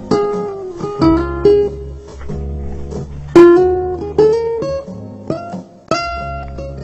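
Background music on acoustic guitar: plucked notes and strummed chords that ring out and die away, over a low sustained bass.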